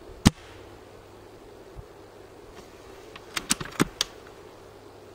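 A single sharp shot from an SRS A2 Silverback spring-powered bolt-action airsoft sniper rifle about a quarter of a second in. A quick run of four or five clicks follows about three and a half seconds in, typical of the bolt being worked for the next shot. Steady wind noise runs underneath.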